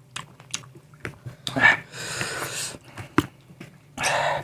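Close-up eating sounds of spicy pickled fruit: wet chewing with sharp biting clicks, and two loud sucking breaths, one about a second and a half in and one near the end, over a low steady hum.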